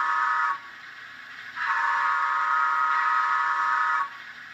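Steam-locomotive whistle from the Bachmann Soundvalue sound decoder in an HO-scale Baldwin 4-6-0 model, sounded by DCC function 2: a long, steady, multi-tone blast that ends about half a second in, then a second long blast from about one and a half to four seconds in.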